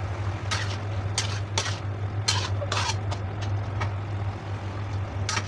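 Metal slotted spatula scraping and tapping against a steel wok while stirring a thick, saucy stew of chicken gizzards and liver: a series of short, irregular scrapes and clinks over a steady low hum.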